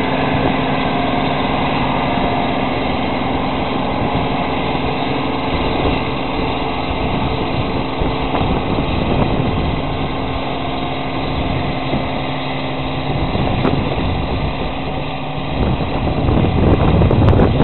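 John Deere 630 combine harvester running steadily under harvesting load, its engine hum carrying steady tones. Near the end a louder, rougher low rumble takes over.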